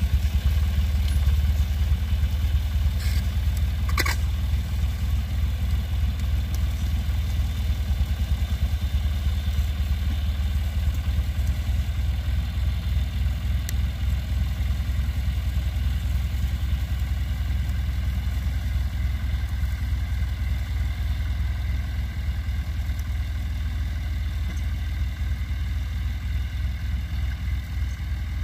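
Tractor engine running steadily as it pulls a plastic mulch layer across the field, a low drone that slowly fades as the tractor draws away. A couple of brief clicks come about three and four seconds in.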